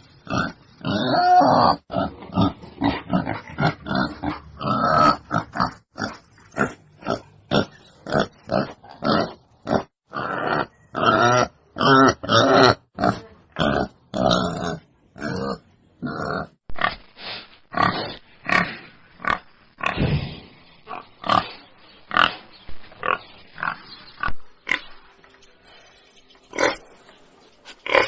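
Wild boar calling in a long string of short calls, packed closely together through the first half and more spaced out in the second half.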